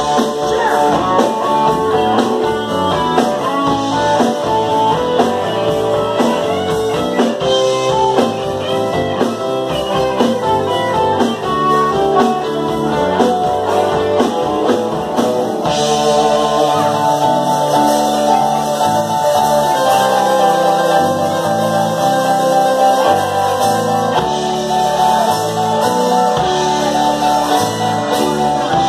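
Live rock band playing: electric guitars, drum kit and keyboard, with a man singing. About halfway through the low end fills out with a stepping bass line.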